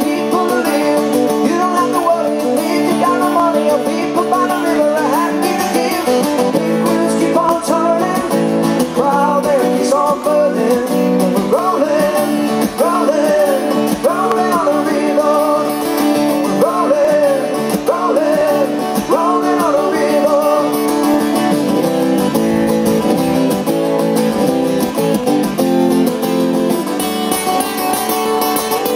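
Live acoustic music: two acoustic guitars played together under a man's singing voice. The singing fades out around twenty seconds in and the guitars play on alone.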